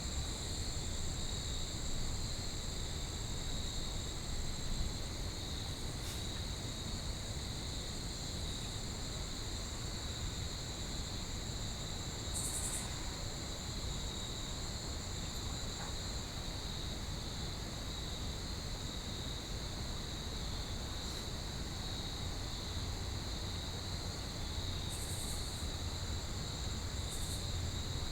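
Steady insect chorus of crickets trilling at two high pitches, over a low rumble.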